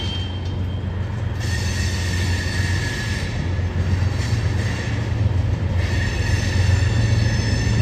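Freight train of covered hopper grain cars rolling past, a steady low rumble with thin, high wheel squeal over it.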